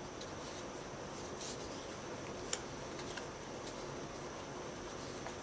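Light handling of thin cardboard game cards: soft rustles and taps as cards are lifted off a small stack and laid down on a wooden table, with one sharper tick about two and a half seconds in, over a steady faint hiss.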